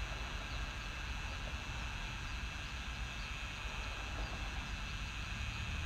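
Outdoor ambience: a fluctuating low rumble like wind on the microphone, a steady high-pitched hum, and a few faint bird chirps.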